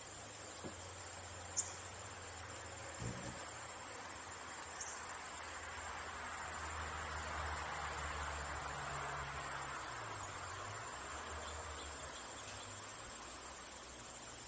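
Steady high-pitched trilling of crickets, with a soft rushing noise that swells and fades in the middle.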